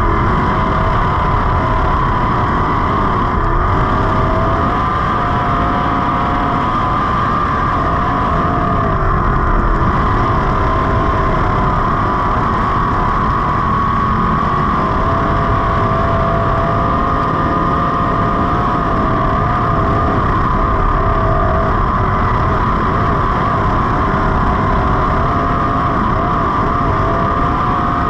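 305 sprint car's V8 engine running at racing speed on a dirt track, heard from the onboard camera in the cockpit: a loud, steady engine sound whose pitch wavers only slightly.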